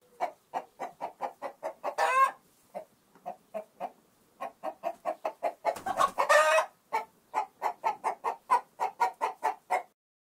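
A chicken clucking in a quick run of short clucks, about three a second, broken twice by a longer drawn-out squawk, about two seconds in and again around six seconds in. The clucking stops shortly before the end.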